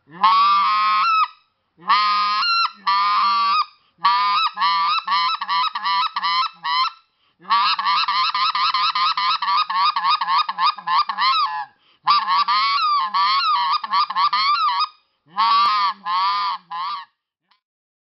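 Hand-blown goose call sounding a sequence of honks: a few single and paired honks, then a long run of quick clucks through the middle, and three last honks about a second before the end.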